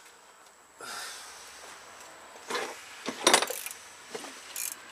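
Metal hand tools working a puller on a Briggs & Stratton 8 hp engine shaft: four short clinks and scrapes, the loudest about three seconds in.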